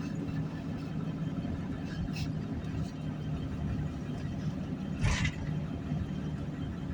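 Steady engine drone and road noise inside a vehicle's cabin while driving, with a brief rushing burst about five seconds in.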